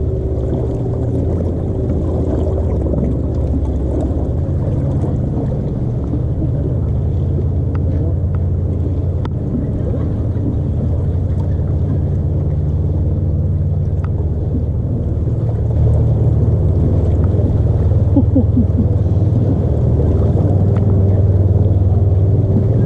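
Steady low rumble of wind and water noise aboard a bass boat, a little louder from about two-thirds of the way through.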